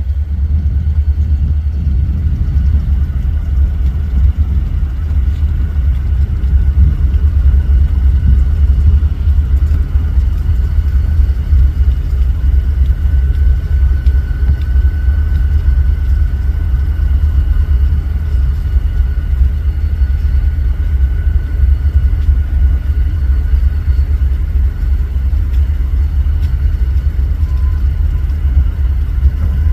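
Diesel locomotive engine running: a steady low rumble with a faint, steady high whine above it.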